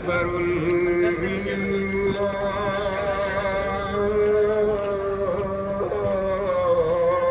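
Melodic vocal chanting: a voice holding long, wavering notes with slow pitch changes between them.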